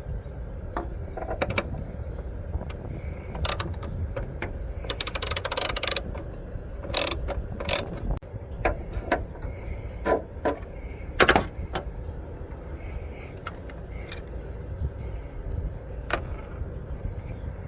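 Socket ratchet clicking in short runs, with a quick burst of rapid clicks about five seconds in and scattered single clicks and knocks, over a steady low rumble: the 7 mm screw of a turn signal housing being worked.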